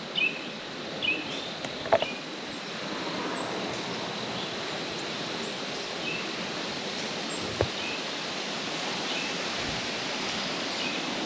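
Steady wind rushing through the trees, with a small bird chirping in short notes several times in the first couple of seconds and now and then after. Two faint clicks, about two seconds in and past halfway.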